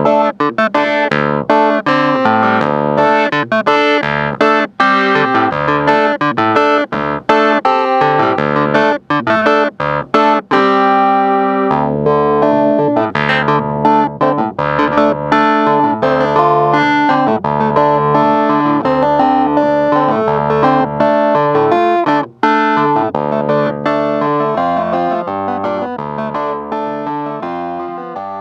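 Hohner Clavinet D6 played in short, sharply attacked notes and chords over a bass line. About ten seconds in, a chord rings on briefly, and the playing fades down over the last few seconds.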